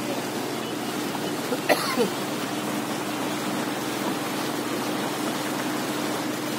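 Small motorboat under way: the engine runs with a steady hum while water rushes along the hull. Around two seconds in there are two sharp knocks, the second with a short falling squeak.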